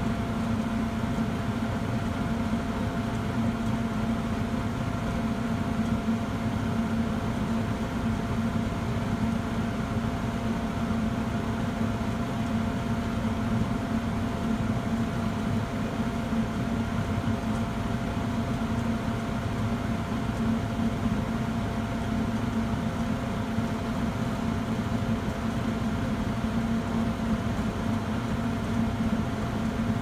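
Gibson/Nordyne gas furnace running with its front panel off: a steady motor hum with a fainter high whine over it.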